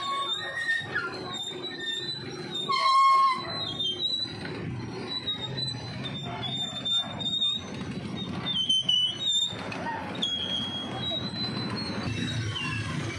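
Motorcycles and motorcycle sidecar tricycles passing one after another, engines running, with short high-pitched squeals over them, the loudest about three seconds in.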